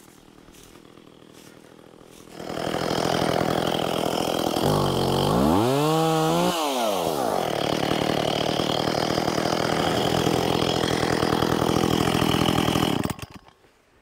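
Two-stroke chainsaw idling quietly, then revving up about two seconds in and running at full throttle, cutting through a tree for about ten seconds before dropping away suddenly near the end. Midway through, a loud tone rises and then falls.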